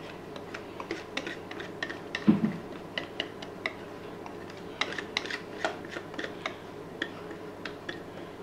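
Utensil clicking and scraping against a mixing bowl as cake batter is scooped into a silicone mould: a run of small sharp clicks, with one louder knock about two seconds in.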